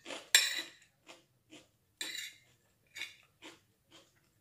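Metal spoon scraping and clinking against a plate while scooping fried corn rice. There are two loud scrapes, about a third of a second in and at two seconds, with fainter clicks and chewing between them.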